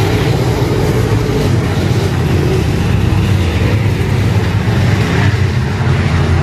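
A field of IMCA Modified dirt-track race cars with V8 engines running around the oval. It is a loud, steady, overlapping engine drone that never lets up.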